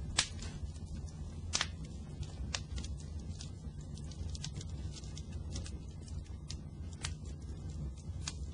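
Fire burning with a steady low rumble and irregular crackles and pops, the two loudest pops coming near the start, about a second and a half apart.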